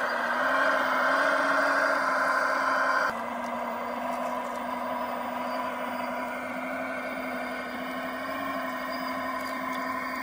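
Drive train of a radio-controlled O&K L25 model wheel loader running under load as its bucket pushes into a pile of soil, a steady hum. The sound drops abruptly about three seconds in, then runs on steadily and a little quieter.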